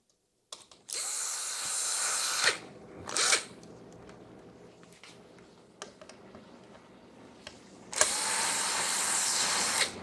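Cordless drill/driver spinning out screws that hold a control board. It runs in two spells of about two seconds each, starting about a second in and about eight seconds in, with a brief blip of the trigger around three seconds in.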